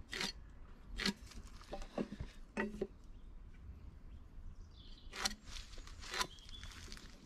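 A square and pencil being handled against the end of a timber fence post while marking cut lines: about six scattered knocks and scrapes with quiet gaps between.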